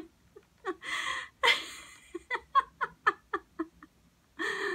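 A woman laughing in short rhythmic bursts, about four a second, broken by a couple of breathy gasps about a second in.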